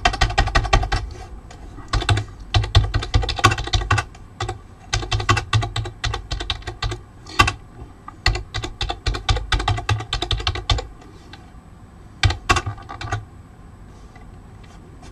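Fast typing on a computer keyboard: runs of rapid key clicks broken by short pauses, a last brief run about twelve seconds in, then the keys stop.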